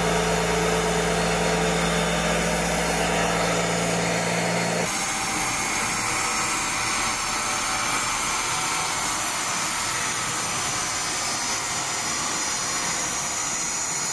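BMW E46 320d's four-cylinder turbodiesel running on a roller dynamometer during its stock baseline run, the rear tyre turning the dyno rollers. The noise is loud and steady, and changes abruptly about five seconds in, from a low steady hum to a wider rushing noise with a high whine.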